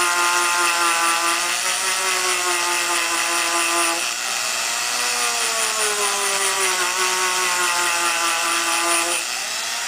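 Small rotary tool with a wire brush running at low speed, scrubbing carbon off a two-stroke muffler's spark arrestor screen: a steady whine over a scratchy hiss. The pitch sags from about four seconds in as the brush is pressed into the carbon, then picks back up.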